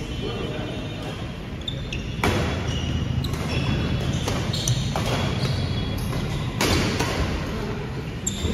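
Badminton rackets striking a shuttlecock back and forth in a rally: about five sharp hits, the first about two seconds in, each ringing briefly in a large hall. Footfalls on the wooden court fill the gaps over a steady low room rumble.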